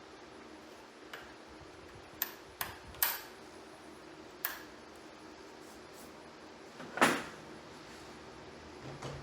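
A few separate sharp knocks and clicks from things being handled in a workshop, the loudest about seven seconds in, over a faint steady hum.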